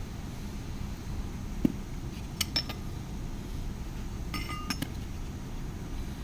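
Metal parts clinking against each other: a single knock, then two short groups of light, ringing clinks, over a steady low rumble.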